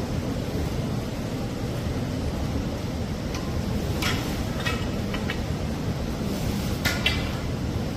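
Giant panda biting and crunching bamboo stalks: a few short crisp cracks, three or four close together about halfway through and two more near the end, over a steady low outdoor rumble.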